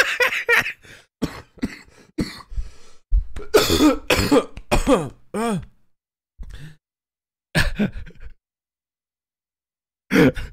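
A man coughing and clearing his throat in several short bursts, with one last burst about eight seconds in.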